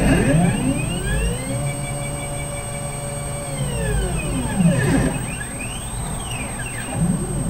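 Stepper motors of a belt-driven CNC gantry whining as the thread-laying head moves. The pitch rises as they speed up, holds steady for about two seconds, then falls as they slow. A second, shorter rise and fall follows about five seconds in.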